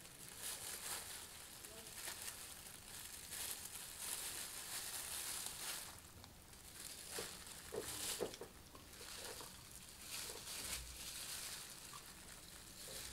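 Faint crinkling and rustling of disposable plastic gloves and a cut-open cardboard milk carton as a frozen ice cream block is handled onto a slice of bread, with a few light taps about seven to eight seconds in.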